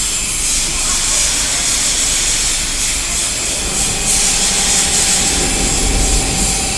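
Steady loud hiss with a low rumble beneath, like machinery or an engine running; a faint steady tone joins about four seconds in.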